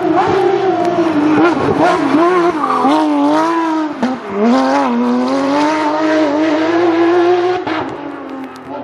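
Porsche rally car engine revving hard at speed, its pitch climbing and falling through the gears. About four seconds in it drops sharply and dips, as on lifting off, then pulls up again. It fades near the end.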